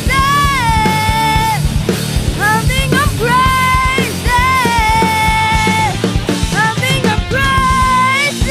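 Rock band playing: drums and bass guitar under a lead melody of long held notes that slide up and down in pitch.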